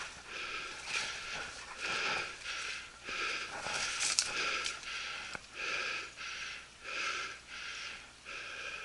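A person breathing hard and rhythmically close to the microphone, about one breath sound every half second or so, while climbing a steep hillside.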